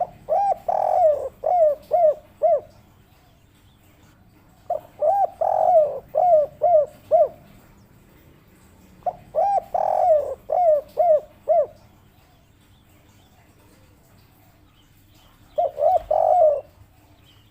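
A spotted dove (tekukur) of the 'kuk 3' song type cooing: four phrases of rounded coo notes, each a few seconds long and about four to five seconds apart, the last one shorter.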